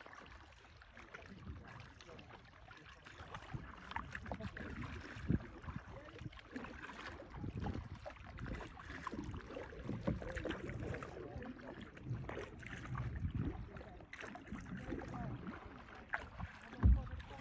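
Water splashing and lapping around a kayak's hull as it is paddled across a lake, with a sharp low thump near the end.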